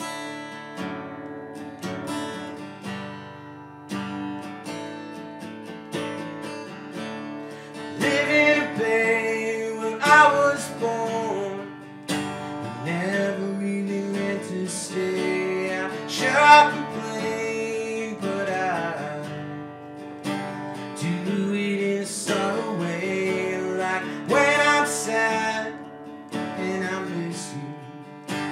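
Acoustic guitar strummed in a slow folk song, joined by keyboard, with a man singing that comes in about eight seconds in.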